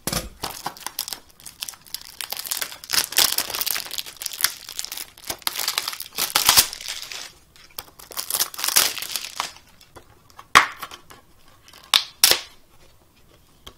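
Clear plastic shrink wrap being torn and peeled off a Blu-ray case, crinkling and crackling for about nine seconds. Then a few separate sharp snaps near the end, as the wrap is balled up in the hands.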